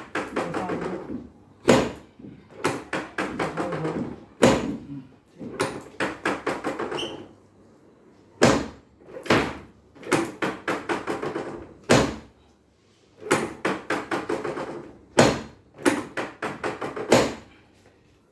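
Hands working on a patient during chiropractic treatment: quick runs of rapid tapping, about a second long, broken by single loud thumps at irregular intervals.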